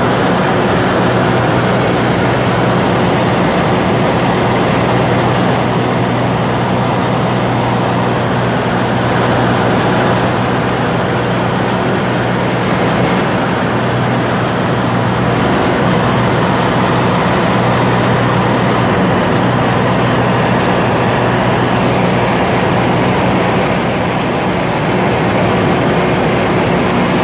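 Light propeller aircraft in level flight, heard from inside the cabin: a steady engine and propeller drone, with a constant low hum over broad rushing noise.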